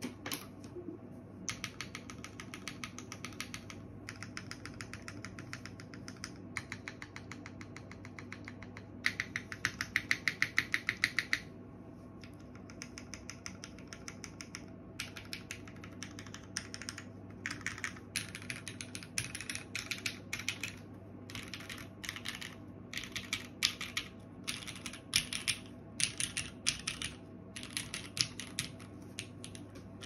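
Mechanical keyboard with Cherry MX Black linear switches on an aluminium plate, top-mounted, with GMK keycaps, clacking under the fingers. First come fast, even runs of keystrokes lasting about two seconds each, then a pause, then slower, uneven typing.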